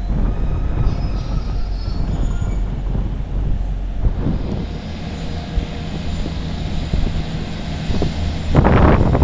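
Diesel multiple-unit trains: a Class 150 Sprinter running slowly with a low steady engine rumble and a brief high wheel squeal a second or two in. Near the end a Class 175's diesel engines come in much louder as it pulls away close by.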